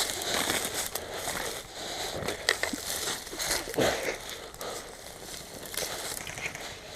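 Rustling and crunching from an airsoft player moving about, with scattered sharp clicks and knocks.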